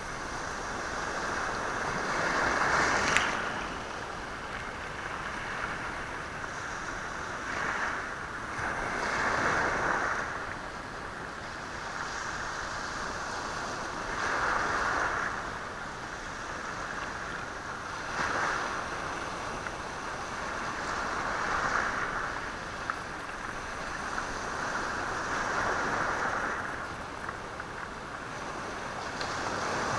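Sea waves breaking and washing over a stony shore, each surge swelling and falling away every few seconds, with the stones rattling in the wash.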